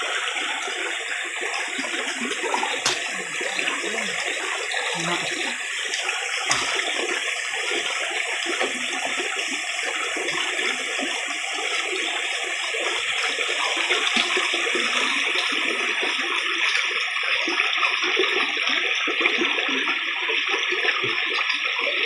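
Shallow creek water rushing and splashing steadily over a rocky bed, with a couple of faint knocks in the first few seconds.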